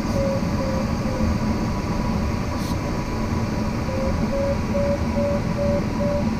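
Steady rush of airflow inside a glider cockpit, with a variometer beeping about twice a second. The beeps stop about a second in and start again about four seconds in, slightly higher in pitch: the glider is climbing in lift.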